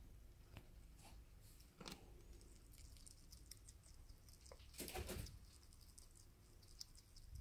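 Faint clicking and crunching of a sugar glider chewing mealworms, with a brief louder crackling noise about five seconds in.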